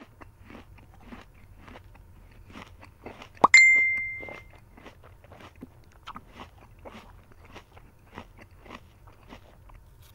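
A phone notification ding sounds once, about a third of the way in, as a single bright chime that rings out and fades over about a second. Under it runs a steady scatter of small chewing crunches and clicks from people eating.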